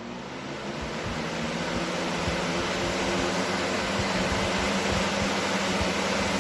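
Hurricane 20-inch box fan running: a steady rush of air with a low motor hum, swelling over the first couple of seconds and then holding steady.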